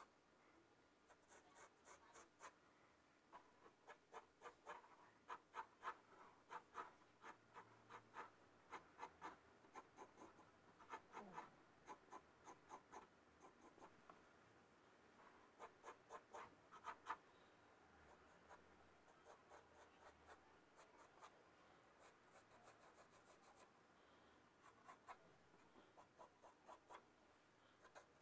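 Faint pencil strokes on drawing paper: quick runs of short scratchy strokes with brief pauses between them, as the edge lines of a sketched cube are gone over to darken them.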